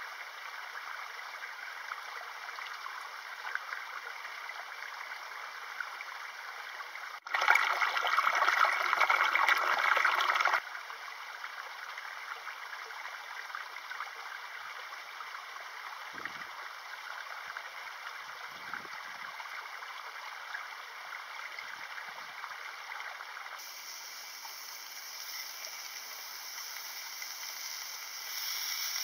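Steady rushing and trickling of a mountain stream, louder for about three seconds starting about seven seconds in.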